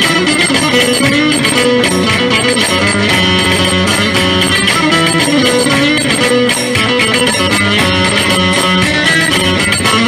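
Loud Turkish regional folk dance music with a melody line that bends and wavers.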